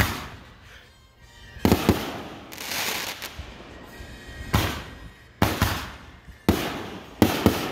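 Fireworks launching and bursting: a string of sharp bangs at uneven intervals, each trailing off, with a longer hissing crackle about three seconds in.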